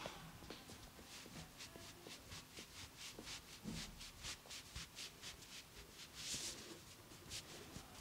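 Hands rubbing in quick, regular massage strokes over hair or skin: a faint swishing at about three to four strokes a second, with one longer swish about six seconds in.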